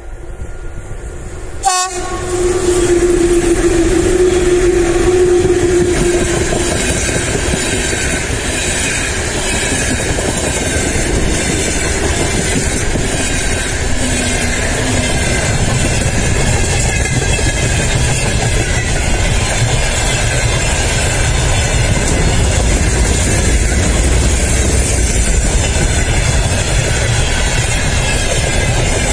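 VL11M electric freight locomotive passing close by, sounding one long steady horn note from about two seconds in for about five seconds. Its freight wagons then roll past with a continuous loud rumble and wheel clatter on the rails, growing heavier about halfway through.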